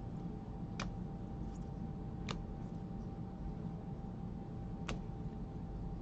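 Steady low room hum with three sharp clicks, spaced a second or more apart.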